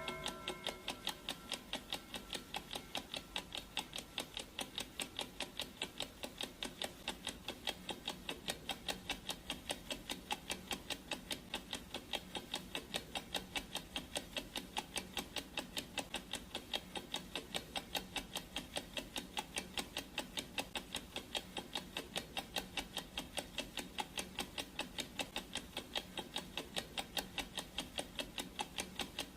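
Clock ticking sound effect: an even, steady train of ticks.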